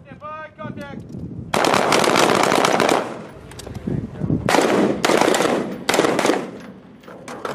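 Automatic weapons fire: a burst of about a second and a half, then two shorter bursts about a second apart, and a few single shots near the end.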